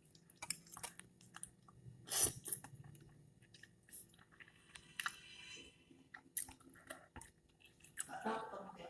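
A person chewing and eating close to the microphone: quiet, scattered mouth clicks and small crunches, with a louder bite about two seconds in.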